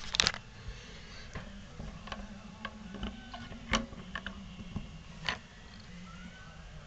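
Irregular small clicks and light knocks of faucet valve parts being handled and fitted together, the loudest right at the start, with sharper ones about four and five seconds in.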